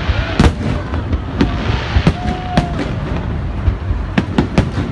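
Fireworks display: aerial shells bursting overhead in sharp bangs over a steady low rumble, with a quick run of three bangs near the end.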